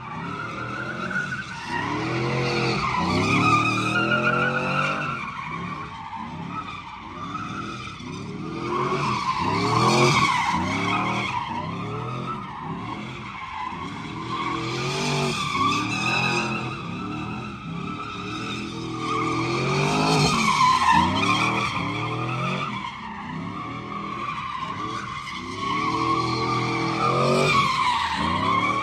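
Pickup truck doing donuts: its engine revs up and down over and over while the rear tires squeal continuously against the pavement.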